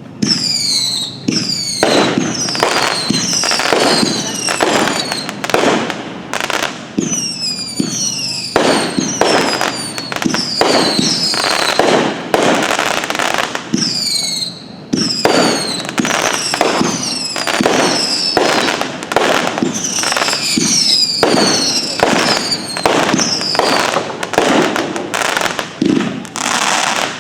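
Red Rhino 'Patriot Arms' 25-shot firework cake firing in quick succession: loud bangs laced with high whistles that fall in pitch, with a short lull about halfway through.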